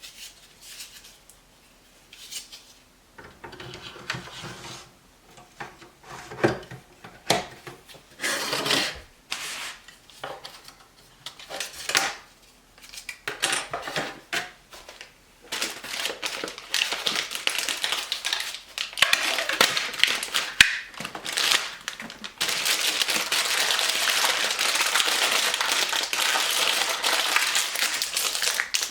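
Hard drives and plastic drive trays being handled: irregular clicks, taps and rubbing. About three-quarters of the way in this changes to a dense, steady crackling, like packaging being crumpled.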